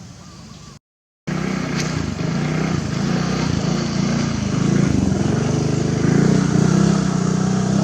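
A motor engine running close by, with a steady low hum. It starts abruptly after a brief gap in the sound about a second in.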